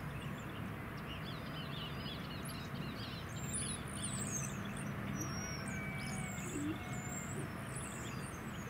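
A flock of small songbirds calling from a treetop: many overlapping high chirps and squeaky gliding whistles, over a steady low background rumble.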